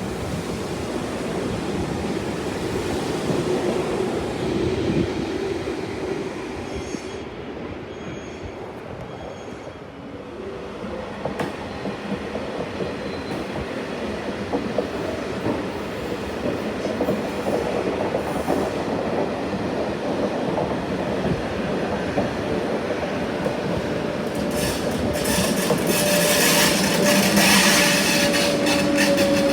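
A train running through the station on the rails, getting louder toward the end as it passes close, with wheel clatter and a steady squeal of the wheels in the last few seconds.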